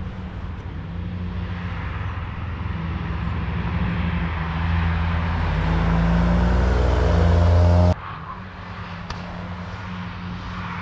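Car engine at speed, growing steadily louder as it approaches with its note rising, then cut off abruptly about eight seconds in; a quieter engine is heard after the cut.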